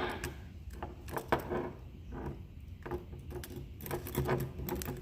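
Small clicks and rattles of a plastic Corvette key fob being handled as the metal key blade is slid back into it, with one sharper click a little over a second in.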